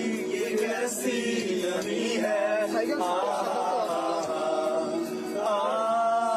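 Men's voices singing a song together, with long held notes.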